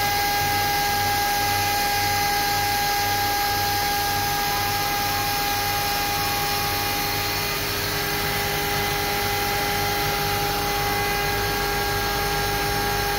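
Haas Multigrind HT five-axis CNC tool grinding machine running: a steady high whine over a hum, with a low throb pulsing about one and a half times a second that fades out about halfway through.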